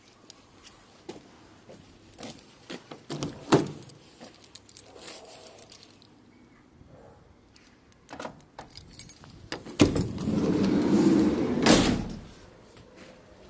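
Keys jangling and clicking in the side sliding-door lock of a 2008 Fiat Ducato van, then the sliding door rolling open along its track for about two seconds, ending in a heavy clunk.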